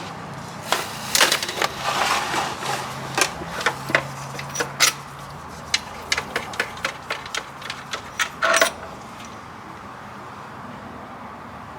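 Hand tools and bolts clicking and clinking as the transmission filter's bolts are worked loose: scattered sharp metallic clicks, a louder clatter about eight and a half seconds in, then stillness.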